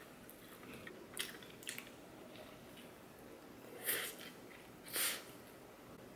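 Close-miked eating: faint chewing and mouth noises of someone eating fast food, with a few short louder noisy sounds, the loudest near four and five seconds in.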